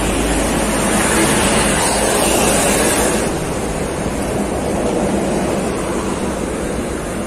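Steady rushing noise of highway traffic passing close by, easing slightly about three seconds in.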